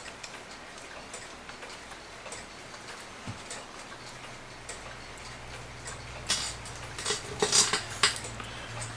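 Mechanical clock ticking steadily. Near the end, a short bout of sharp clicks and clatter from small parts being handled, over a low hum that comes in about halfway through.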